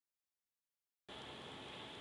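Near silence: a dead-silent gap for about the first second, then a faint, steady hiss of room tone.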